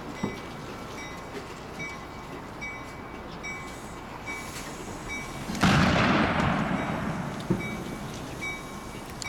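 A sudden loud blast about five and a half seconds in, dying away as a rushing noise over two to three seconds: a transformer exploding.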